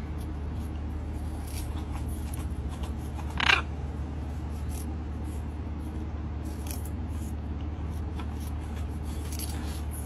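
Green-winged macaw cracking and crunching food in its beak: scattered small sharp clicks, with one louder short harsh sound about three and a half seconds in, over a steady low hum.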